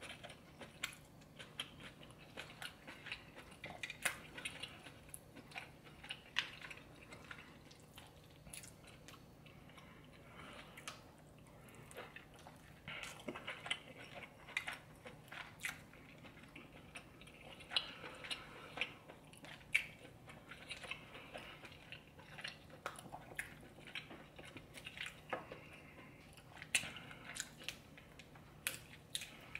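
Close-miked eating of a seafood boil in thick butter sauce: steady chewing and biting with many short, sharp, wet mouth clicks.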